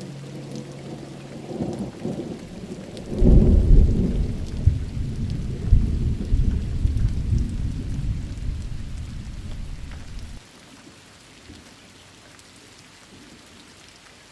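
Thunder rolling over steady rain in a monsoon thunderstorm. A deep rumble builds, swells about three seconds in and rolls on for several seconds, then cuts off abruptly, leaving only the faint hiss of rain.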